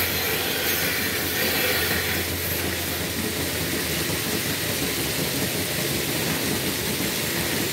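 Dairy shed milking plant running: a steady mechanical hum with a constant hiss over it.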